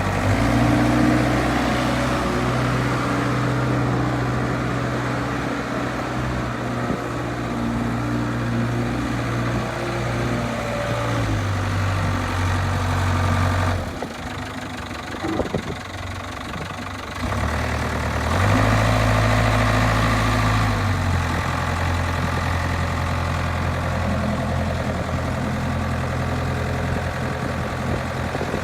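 New Holland backhoe loader's diesel engine running, its speed rising and falling: it drops partway through, goes quieter for a few seconds in the middle with a few clicks, then picks up again before settling back down.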